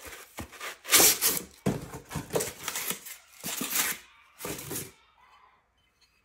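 Packaging being handled: a string of irregular rustling and scraping noises that stops about five seconds in.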